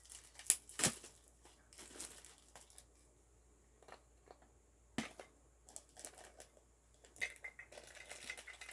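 Bubble wrap and plastic packaging crinkling and rustling as a figure is pulled from a Funko Soda can and unwrapped, with a few sharp clicks. The crackling thickens near the end.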